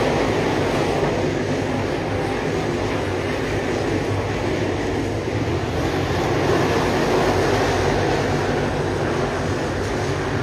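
A field of dirt late model race cars with GM 604 crate V8 engines running laps, blending into a steady, dense engine drone with no single car standing out.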